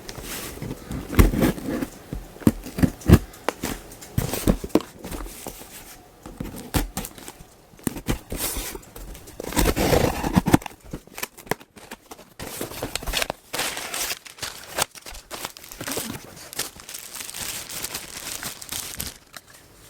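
Packaging being opened by hand: irregular crinkling, rustling and tearing, with sharp clicks and knocks, loudest in a few bouts about a second in and again around the middle.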